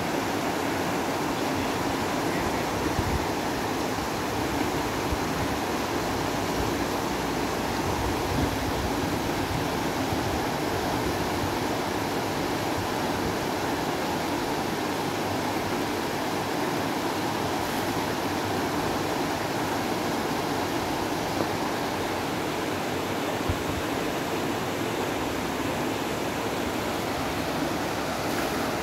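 Steady rush of a shallow river running over rocks and small rapids.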